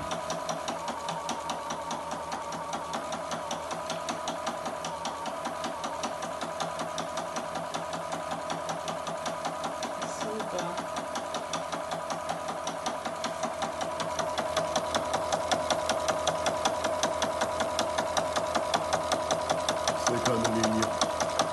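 Electric sewing machine running, the needle stitching fabric at a fast, even rate over a steady motor whine. It gets louder about two-thirds of the way through.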